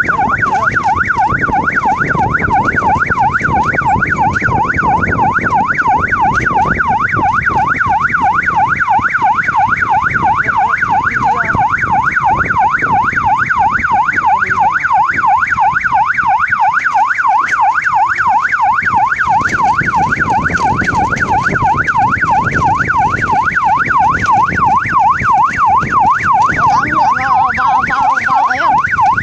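Electronic police-style siren fitted to an electric bicycle, sounding a fast yelp whose pitch sweeps up and down about three times a second without a break. A low rumble of the ride runs underneath, and the warble turns ragged near the end.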